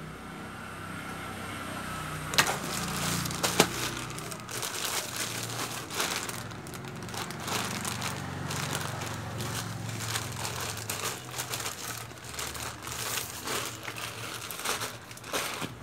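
Plastic courier mailer crinkling and crackling irregularly as it is pressed and handled, with two sharp clicks about a second apart a little over two seconds in.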